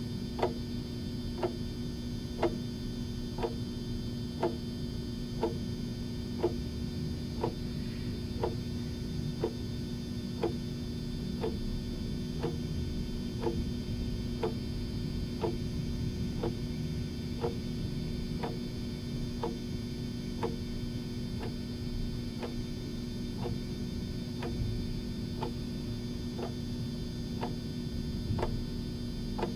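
Steady ticking, about one tick a second, over a constant low hum.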